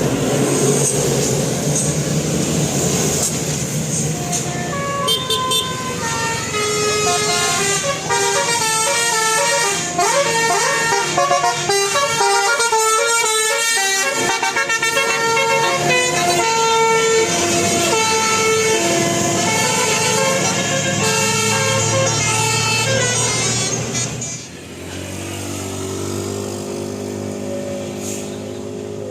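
Telolet basuri musical horn on a vehicle playing a tune of quick stepped notes, after a few seconds of engine and road noise. Near the end the tune breaks off briefly and a lower run of notes starts.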